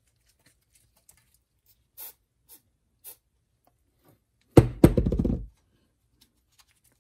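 Short hisses of an aerosol silicone spray lubricant, a few quick shots about two and three seconds in, then a loud knock on the workbench with a brief low ring about halfway through.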